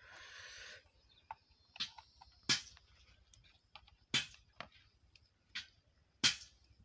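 Irregular sharp clicks and taps from handling a clamp meter and plugging in its test leads, with a brief rustle at the start. The loudest clicks come near the middle and near the end.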